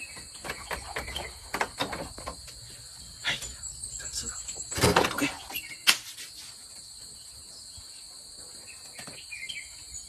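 A steady, high-pitched insect chorus carries on throughout. Over it come scattered clicks and knocks, the loudest about five and six seconds in.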